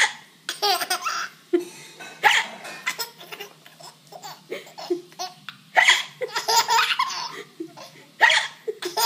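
A young child giggling in short fits of laughter, broken by hiccups.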